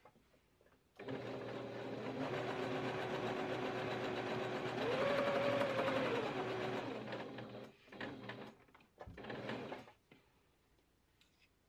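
Domestic sewing machine sewing a straight-stitch seam. The motor starts about a second in and runs steadily, speeds up for a moment in the middle, then stops and gives two short spurts near the end.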